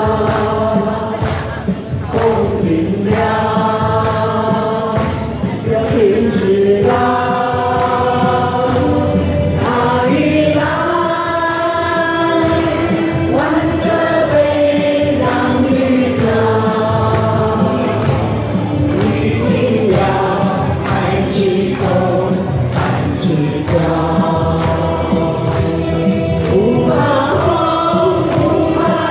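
Large amateur choir of men and women singing a Taiwanese folk song together, with accompaniment played over a PA sound system.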